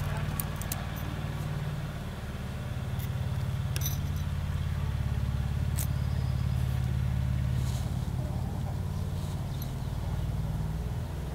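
A steady low hum, like a motor running in the background, with a few short, sharp clicks of metal pliers working thin lure wire.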